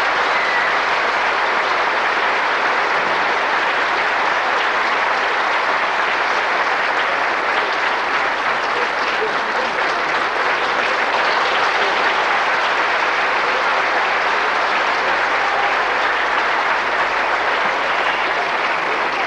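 A large audience applauding, a steady dense clapping that holds at one level throughout.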